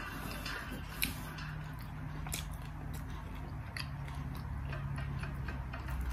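Eating sounds: a fork clicking now and then against the bowls and chewing on fried potatoes and fishballs, over a low steady hum.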